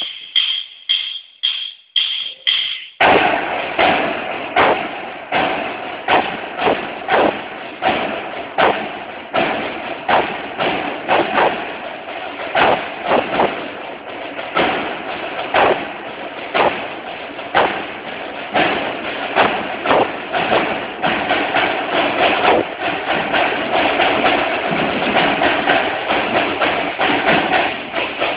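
Drumline of snare drummers playing live: a count-off of about six sharp stick clicks, two a second, then, about three seconds in, the whole line comes in with fast, dense snare drumming and loud accents.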